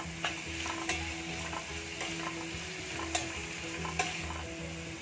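Diced onion and carrot sizzling in oil and butter in a stainless steel kadai, stirred with a spatula that scrapes and taps the pan a few times.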